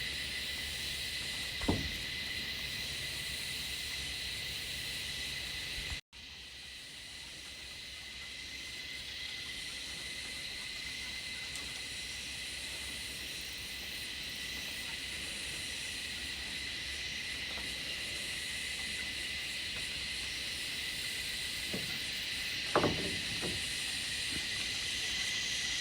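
Chorus of Australian bush cicadas: a steady, shrill, static-like hiss with a high whine held on one pitch. It cuts out for a moment about six seconds in, then swells back up.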